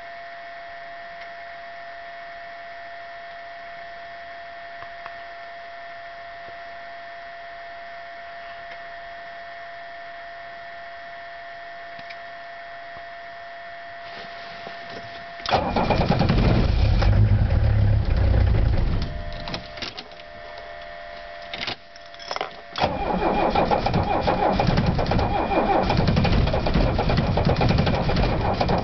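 Mercedes-Benz W115 diesel engine being started cold at about −19°F. After a faint steady whine, the starter cranks it for about three seconds and stops, then gives two short bumps. About three-quarters of the way in the engine catches and keeps running loudly.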